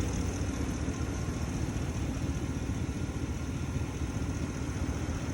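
Ford Super Duty pickup's engine idling steadily, running again once a rotten wire that had kept it from starting was dealt with.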